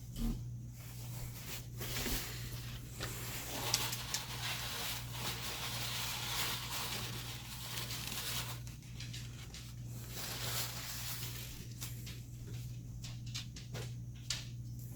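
Crock pot's ceramic insert being wiped out with a cloth or paper towel: a rubbing hiss lasting several seconds, followed by a few light clicks and knocks of handling. A steady low hum sits underneath.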